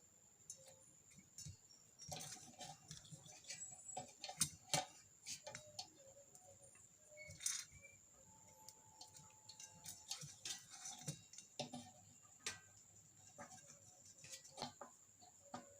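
Faint, irregular small clicks and ticks of hands working wires and small parts of an electric kettle, over a faint steady high-pitched tone.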